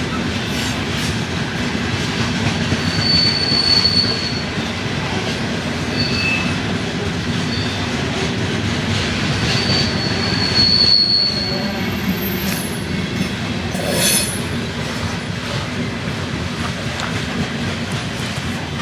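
CSX coal hopper train rolling past with a steady rumble of wheels on the rails, broken by several brief high-pitched squeals of steel wheels against the rail.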